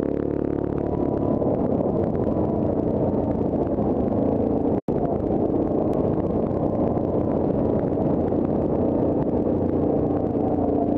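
Yamaha Grizzly ATV engine running steadily as the quad is ridden over a rough dirt trail. The sound cuts out for an instant a little before halfway.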